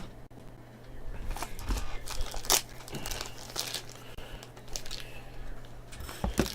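Plastic card packaging crinkling and rustling as football trading cards are unwrapped and handled, in a run of short, sharp crackles.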